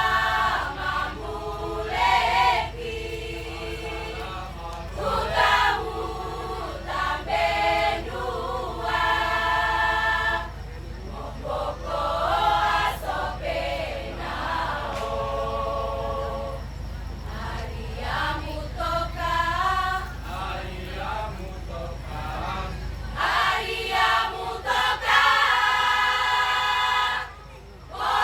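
A choir singing sustained chords in several voices, with a brief break about a second before the end.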